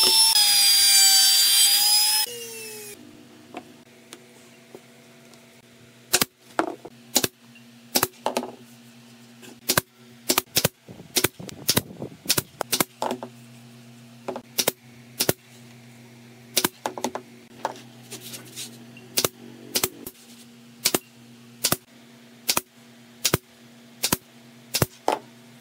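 An electric trim router whines at speed for the first two seconds, then stops. From about six seconds in, a pneumatic stapler fires some thirty sharp shots at uneven spacing, often two or three a second in short runs, driving staples through a rubber tyre strip into the rim of a wooden wheel. A steady low hum runs underneath.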